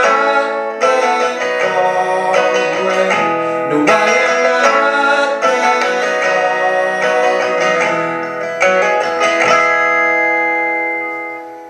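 Acoustic guitar strummed through the closing bars of a song. The final chord, struck about nine and a half seconds in, is left to ring and fades out.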